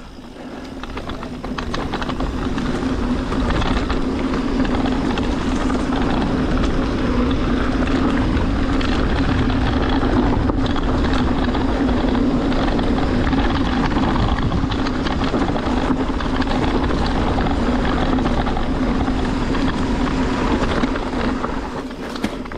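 Mountain bike rolling fast down a dirt trail: steady wind rush on the camera microphone with tyre noise and a steady low hum, building over the first couple of seconds and easing off near the end.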